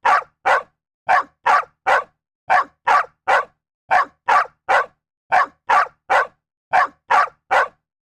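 A dog barking in quick sets of three, with a short pause between sets, repeating at an even pace. Each bark is short and sharp, with silence in between.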